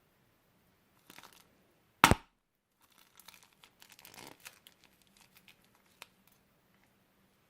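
Plastic packaging being handled: a short loud tearing sound about two seconds in, with brief crinkling before it and scattered crinkles and clicks after it.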